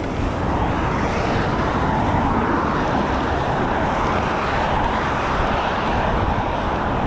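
Steady rush of road traffic on a dual carriageway.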